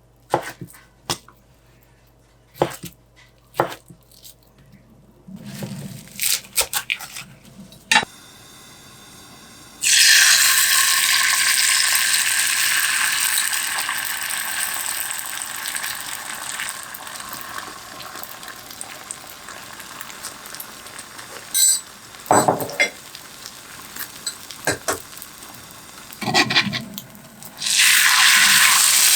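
Food sizzling in a hot pan. The sizzle starts suddenly about a third of the way in and slowly dies down, and starts again loudly near the end. Utensils click and clink against cookware.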